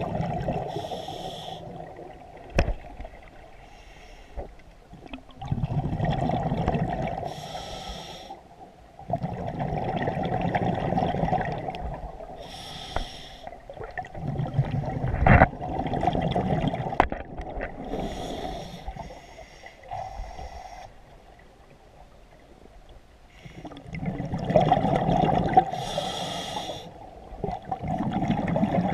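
Scuba diver breathing through a regulator underwater: a short hiss on each inhale, then a rumbling stream of exhaled bubbles, repeating about every five to six seconds. Two sharp knocks stand out, the louder one about halfway through.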